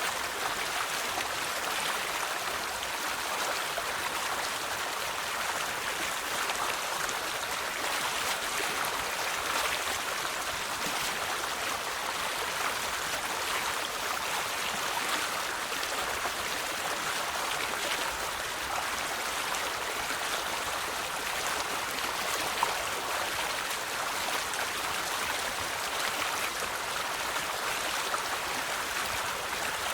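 River water flowing over stones: a steady rushing and babbling with no breaks, and a single faint click about three quarters of the way in.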